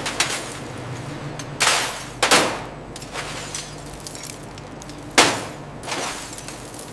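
Scrap gold chains and jewelry clinking and clattering as they are lifted and dropped onto a steel worktable: a handful of sharp metallic clashes, the loudest about one and a half, two and a quarter and five seconds in, over a steady low hum.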